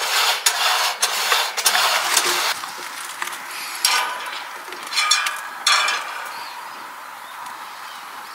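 Rustling, rubbing handling noise, then a few short metallic clinks and rattles as a metal heat-powered stove fan is set onto the top of a kerosene heater.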